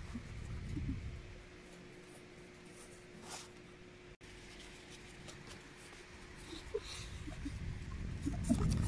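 Close handling of a corrugated cardboard mask: light scrapes, rustles and small taps of the cardboard with rumbling handling noise, quieter in the middle and building again near the end.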